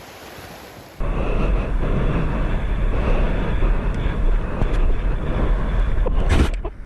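Loud wind and water rumble buffeting an action camera's microphone on the water. It starts abruptly about a second in and runs steadily, with a brief sharp knock or splash just before the end.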